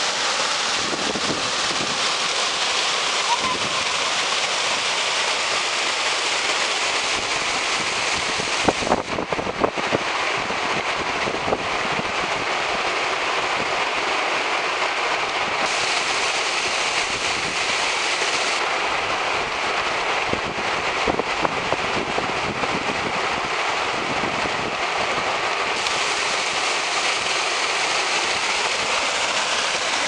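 Steady rushing of a rocky stream's rapids and small cascades, white water running over stone ledges. A few short knocks about nine seconds in.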